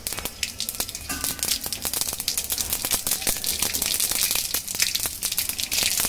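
Mustard seeds popping and crackling in hot oil in a kadai: many rapid sharp pops over a sizzle, growing louder and busier as the seeds start to splutter, the sign that the oil is hot enough for tempering.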